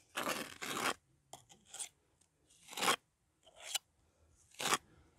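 Mason's trowel scraping and pressing mortar into the joint against a timber post, in a series of short scraping strokes about one a second.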